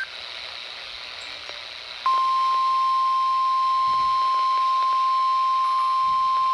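NOAA Weather Radio warning alarm tone: a single steady 1050 Hz beep that comes on abruptly about two seconds in, after faint static, and holds without change. It is the signal that a warning message is about to be broadcast.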